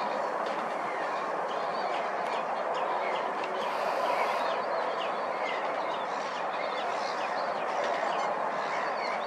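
Many birds calling at a wetland: a dense scatter of short, high chirps and calls over a steady background rush.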